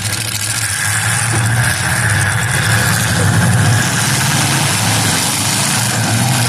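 Demolition derby car engines running steadily, with a constant noisy wash over them and no crash impacts.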